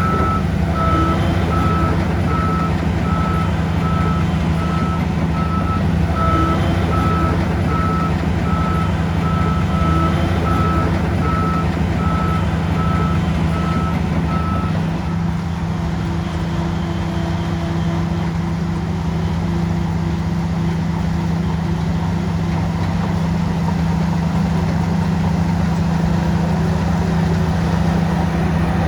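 Heavy diesel engine of a crawler bulldozer running steadily, with a reversing alarm beeping at an even pace for about the first half before it stops.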